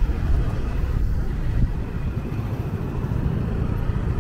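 Low, uneven rumble of city street noise, like road traffic.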